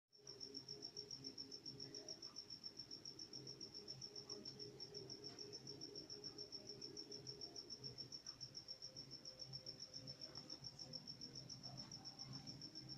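A cricket chirping in a steady, even rhythm of about seven or eight high, thin pulses a second, over a faint low hum.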